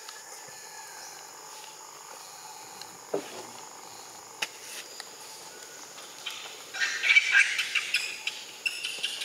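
A steady faint hiss, then from about seven seconds in a burst of rapid, high, scratchy animal calls that carries on to the end.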